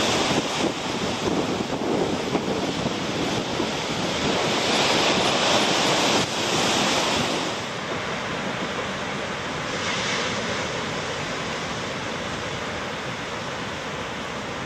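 Heavy surf breaking on a rocky shore, a continuous rushing wash of waves. About eight seconds in it drops to a softer, steadier sound of the sea.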